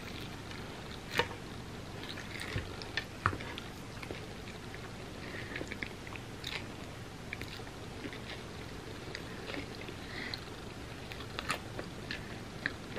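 Chewing and crunching of a bite of a chocolate-coated bar filled with peanuts and puffed rice, with a few sharp cracks in the first few seconds and smaller crackles and mouth sounds after.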